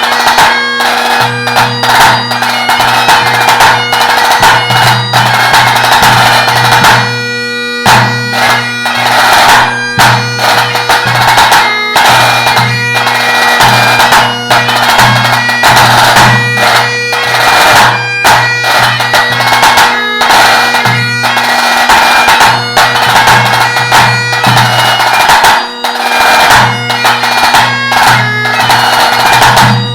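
Great Highland bagpipe playing a tune over its steady drones, with a tenor drum struck in time to it. The drones and chanter run unbroken but for a brief break about eight seconds in.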